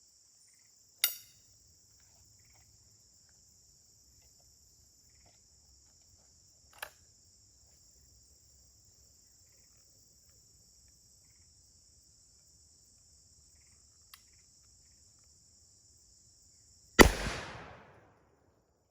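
A single shot from a Montgomery Ward "Texas Ranger" 12-gauge single-shot break-action shotgun firing bird shot, loud and sudden near the end, with an echo trailing off for about a second. Before it, crickets chirr steadily behind a few sharp clicks, and the chirring stops at the shot.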